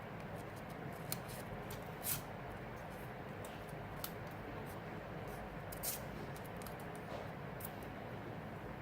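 Several short, crisp clicks, spaced one to two seconds apart, over a steady low hum.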